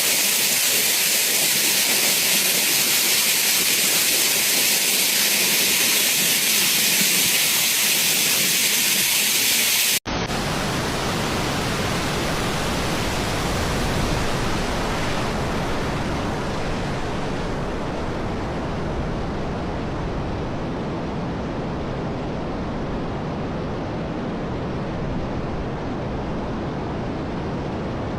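Steady rushing noise with no distinct events: a high, thin hiss for about the first ten seconds, then after an abrupt cut a fuller, deeper rush that slowly loses its treble.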